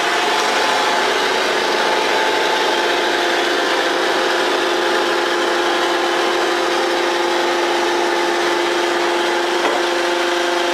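Roadheader running steadily at the coal face with its pick-studded cutting head turning: a loud, even machine hum with a few held tones over a rushing noise.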